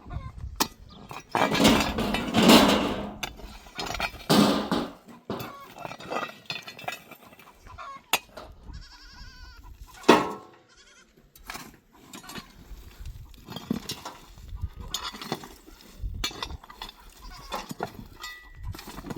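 Goats bleating several times, the loudest calls in the first few seconds and a sharp one about ten seconds in, with scattered short clicks and knocks between them.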